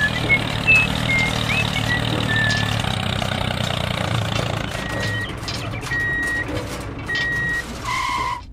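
Heavy truck engine running steadily, with a reversing alarm that beeps three times about a second apart in the second half.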